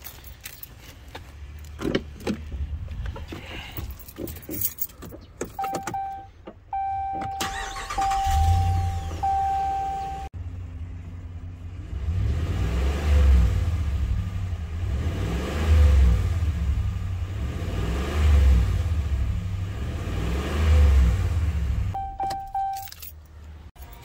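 Ram 1500's Hemi V8 cranked and started about eight seconds in, while an electronic dashboard chime beeps in short repeated tones, after keys jangling. The engine then runs, its speed rising and falling about four times, to mix freshly added oil and Lucas oil stabilizer.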